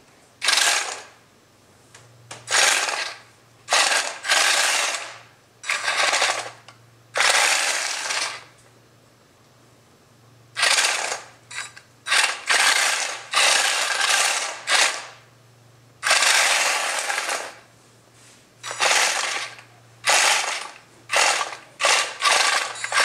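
Homemade RC tank's Heng Long gearmotors driving its wooden gears and tracks, running in about fifteen short bursts of half a second to a second and a half each, stopping between bursts as it is driven in spurts.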